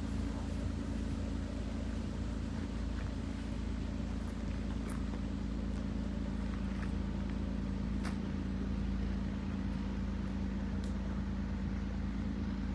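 An engine drones steadily at a low, even pitch, without revving.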